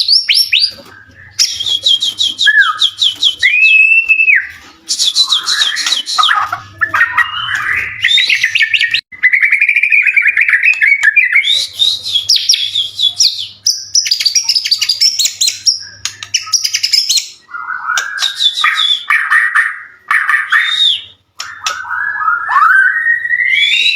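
White-rumped shama (murai batu) in full song: fast, high trilled phrases alternating with lower whistled notes that slide up and down, with short breaks between phrases.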